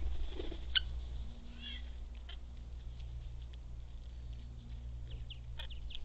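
Short, sharp high chirps and clicks from parrots at a seed feeder, scattered throughout, with a louder one just under a second in and a cluster near the end. A steady low hum runs underneath.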